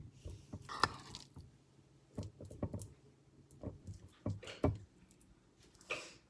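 Metal spoon spreading mashed avocado across thick toast: soft wet squishes and scrapes over the crust with light clicks, in irregular strokes.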